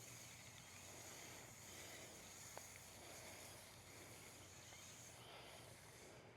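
Near silence outdoors: faint background hiss with a steady high-pitched insect drone that stops about five seconds in, and one faint click about two and a half seconds in.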